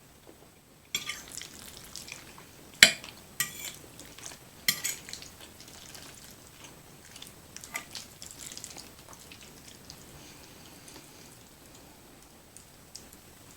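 Cutlery clinking and scraping on a plate while stirring creamy fettuccine alfredo: a handful of sharp clinks in the first five seconds, then softer scattered ticks.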